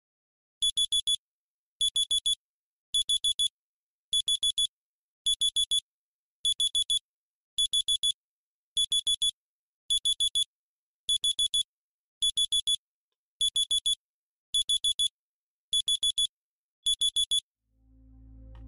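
Smartphone alarm clock beeping: bursts of about four quick high-pitched beeps, a little over one burst a second, repeating steadily until it is switched off near the end.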